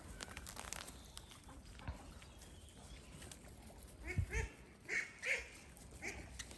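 Dalmatian puppy giving a handful of short, high, squeaky yaps in quick succession from about four seconds in, with a soft thud as they begin.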